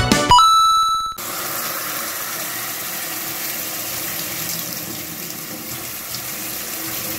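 Water spraying steadily from a handheld LED shower head into a paper cup and a stainless steel kitchen sink, starting about a second in after a short steady beep.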